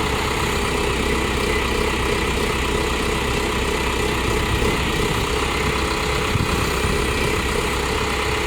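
LiuGong 764A backhoe loader's diesel engine running steadily.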